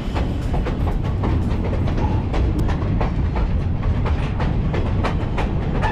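Train rolling along the track, heard from an open-air passenger car: a steady low rumble with frequent clicks of the wheels over the rails.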